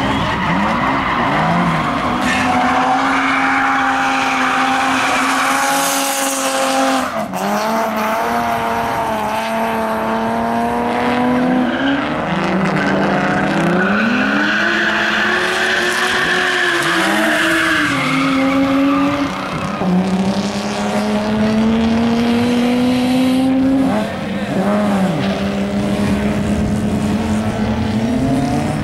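BMW drift cars driven sideways, engines revving up and down again and again as the throttle is worked through the corners, with tyres squealing as they slide.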